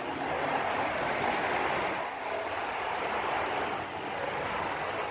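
Steady wash of distant road traffic from a busy multi-lane highway below, heard from high above.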